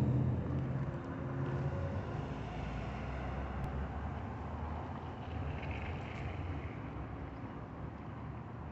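A road vehicle's engine rumble fading away as it passes, leaving a steady low traffic rumble.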